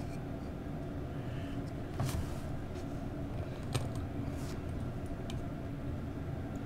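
Steady low background hum with a few light clicks and taps as hands handle tweezers, plastic model parts and a glue bottle on a workbench.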